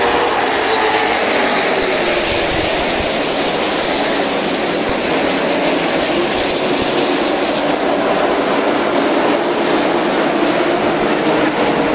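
A pack of stock cars racing on a short oval, their V8 engines blending into one loud, steady drone. The engine pitches slowly slide up and down as the cars go by.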